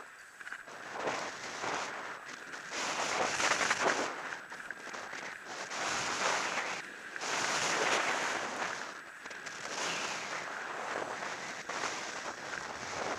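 Skis scraping over packed piste snow in a run of turns: a hissing scrape that swells and fades with each turn, about every two seconds.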